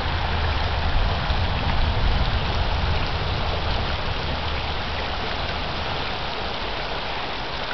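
Mountain river rushing over a gravel bed, a steady hiss of flowing water, with a low rumble underneath that eases after about three seconds.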